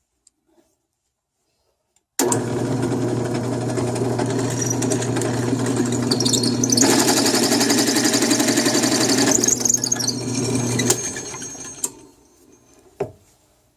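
Bench drill press switched on, its motor running at a steady hum. About halfway through, a harsher cutting sound joins it as the bit drills into the workpiece. The press is switched off with a click and spins down, followed by a single knock.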